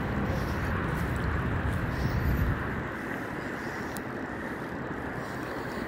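Wind buffeting the phone microphone over choppy water, a steady rushing noise with a heavy low rumble that eases about two and a half seconds in.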